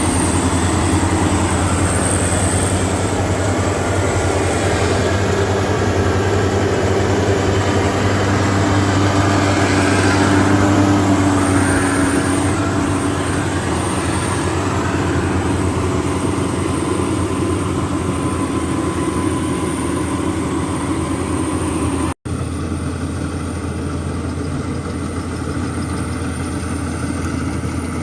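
A heavy machine's engine runs steadily, swelling a little about ten to twelve seconds in. The sound drops out for an instant about 22 seconds in.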